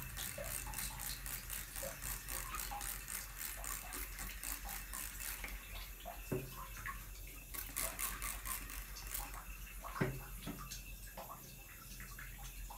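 Trigger spray bottle misting water onto skin in quick repeated squirts, a fast run of short hissy bursts for the first five seconds or so and another short run a little later, with a couple of soft knocks in between.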